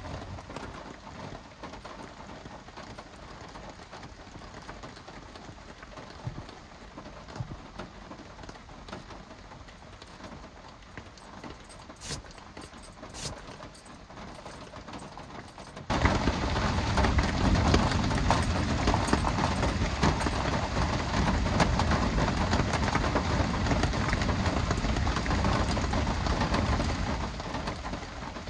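Rain falling on the pickup truck, heard from inside the cab as a steady wash of noise; about sixteen seconds in it suddenly becomes much louder and heavier.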